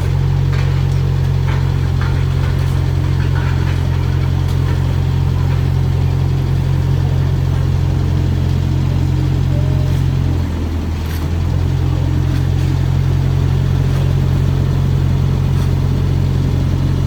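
Engine running steadily with a deep, even hum, easing off briefly about ten and a half seconds in before settling back.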